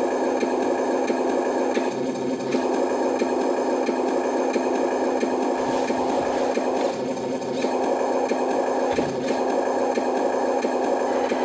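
Simulated truck diesel engine sound from a remote-control toy truck's small built-in speaker, a steady electronic drone with small brief changes along the way.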